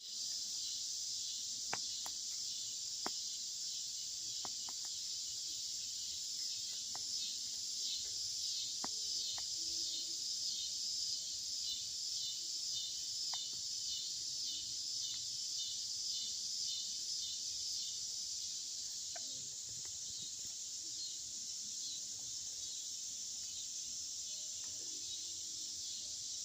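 Steady chorus of insects: a high, dense, pulsing chirring that carries on throughout. A few sharp pops from the campfire cut through it, two of them near the start.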